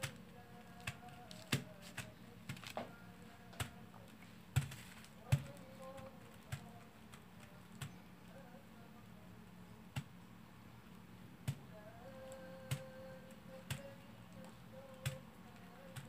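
Irregular light taps and clicks of a silicone pastry brush working melted chocolate into silicone chocolate molds, over a faint steady hum.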